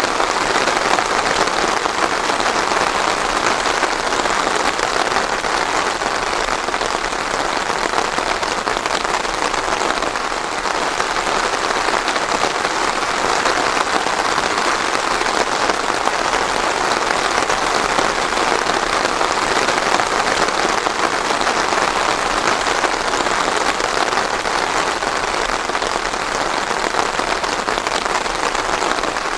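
Steady heavy rain falling on a surface, a dense even patter of drops with no thunder.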